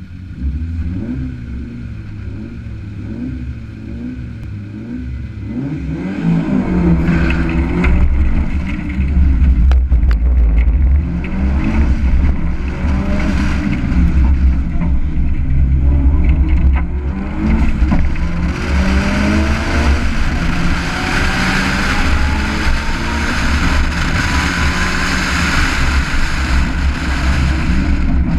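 Rally car engine held at wavering revs, then launching hard about six seconds in and pulling through the gears, each with a rising engine note. From about two-thirds through, loud wind and road rush builds over the door-mounted microphone as speed rises.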